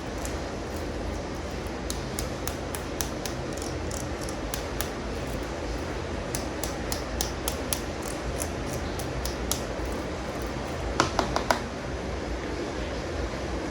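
Small plastic toy figures being handled, giving light scattered clicks and taps, with a quick run of four or five louder taps about eleven seconds in. A steady low hum runs underneath.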